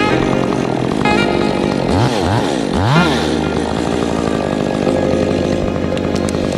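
Chainsaw engine running steadily, revving up sharply in three quick rises about two to three seconds in.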